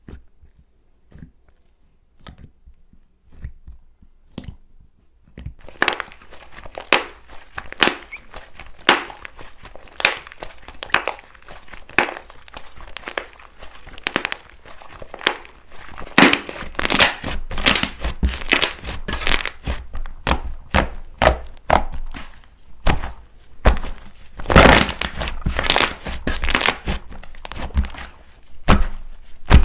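Slime being squeezed, pressed and pulled by hand, crackling and popping. At first there are only a few soft clicks; from about six seconds in it becomes a dense run of crinkly crackles and pops, with louder squishing crunches now and then.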